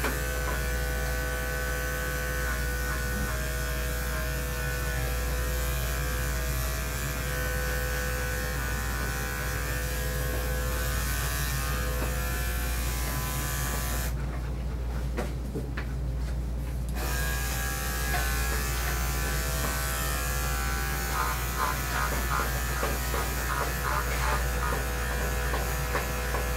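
Electric dog-grooming clippers buzzing steadily as they shave a large dog's body coat down close. About halfway through the buzz drops away for a few seconds, then the clippers run again.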